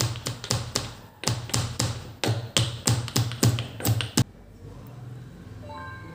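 Stone pestle pounding in a small stone mortar: sharp, even knocks at about four a second, with a brief pause about a second in, stopping about four seconds in.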